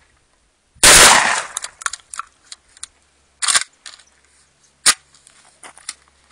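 Catamount Fury 12-gauge semi-automatic shotgun bump-fired with cheap low-brass shells: a very loud rapid burst of shots about a second in, followed by two quieter sharp cracks and scattered light clicks.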